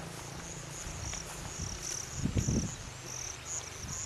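Insects chirping in a steady repeating pattern, short high-pitched pulses about twice a second. A low muffled rumble comes a little past halfway.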